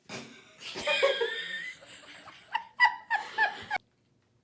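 Laughter, ending in a run of short chuckling bursts, then cut off suddenly to silence near the end.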